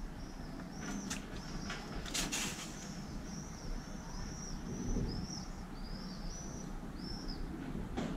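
A bird chirping over and over: a string of short high chirps, about two a second. In the first few seconds there are also a few crackles of a thin plastic bottle being squeezed while pouring.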